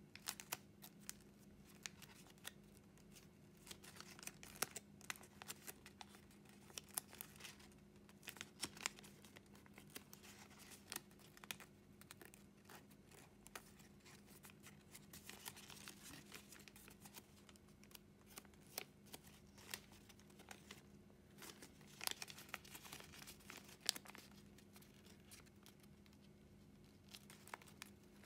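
Sheet of two-sided origami paper crinkling and crackling under the fingers as it is folded and shaped by hand, in many short sharp bursts, over a faint steady hum.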